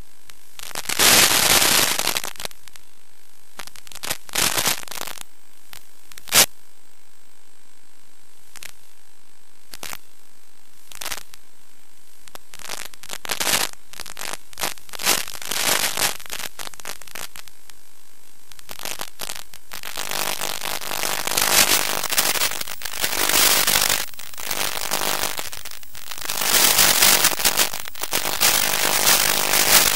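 Radio static from an analog FPV video receiver's audio channel: a steady hiss broken by sudden crackling bursts where the link breaks up. From about two-thirds of the way in, the crackling becomes dense and nearly continuous.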